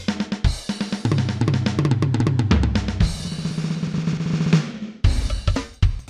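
Drum machine playing a busy drum-kit pattern with fast hits and low pitched notes, changing to sparser, heavier hits about five seconds in.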